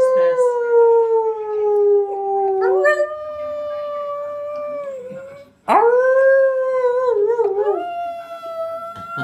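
Jack Russell terrier howling: three long drawn-out howls, the first sliding slowly down in pitch. After a short break about five and a half seconds in comes the last, which wavers in pitch.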